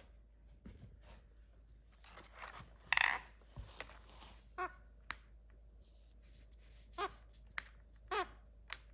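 Indian ringneck parakeet giving a few short calls amid light clicks and taps of ping-pong balls being knocked about, with a rustling patch about two seconds in.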